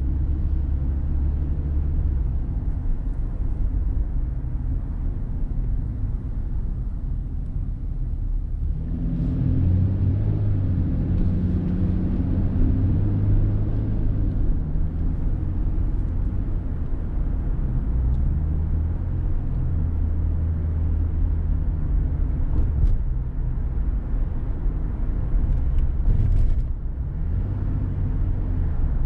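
Car engine and road noise while driving, a steady low hum that grows fuller and a little louder about nine seconds in.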